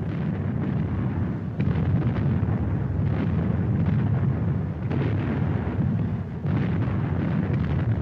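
Aerial fireworks going off in a rapid, continuous barrage: a dense low rumble of booms with sharper reports every second or so.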